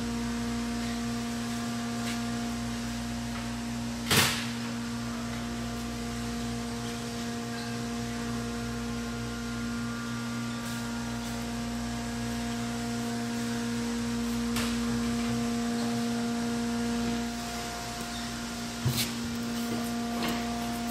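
Steady electrical hum of workshop equipment, several fixed tones held without change, with one sharp click about four seconds in and a couple of light knocks near the end.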